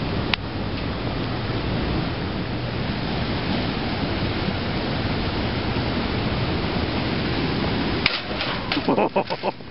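Steady rushing outdoor noise, then, a little before the end, a few sharp knocks followed by a quick rattling run of short impacts as a bicycle is ridden up against a curb.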